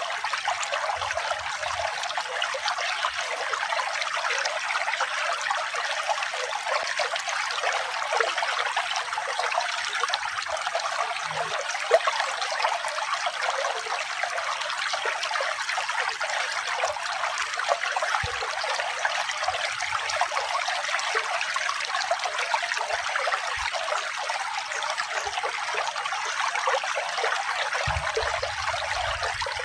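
Water trickling and splashing steadily, a continuous even rush with no break or change.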